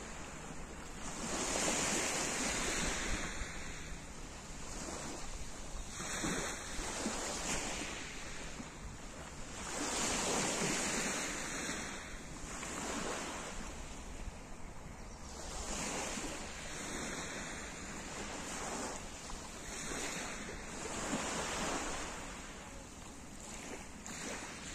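Small waves washing onto a pebble beach, the surf swelling and fading every few seconds.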